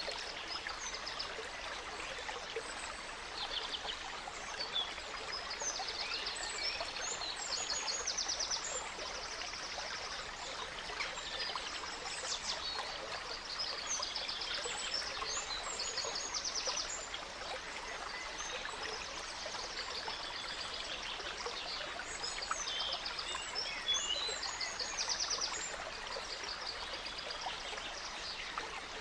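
A gentle stream trickling and burbling steadily, with several small songbirds chirping and singing rapid trills over it.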